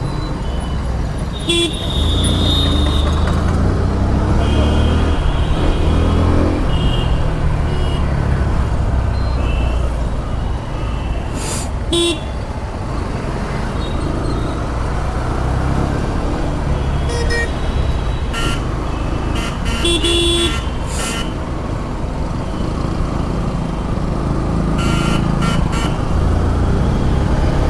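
Road traffic heard while riding a motorcycle: a steady low rumble of engine and wind, with vehicle horns honking in short blasts again and again.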